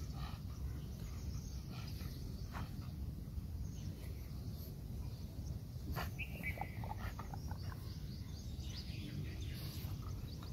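Outdoor ambience: a steady low background rumble with birds chirping now and then, a short cluster of chirps about six seconds in.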